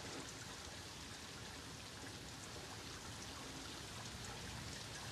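Faint, steady rain, with water running along a street gutter into a storm drain.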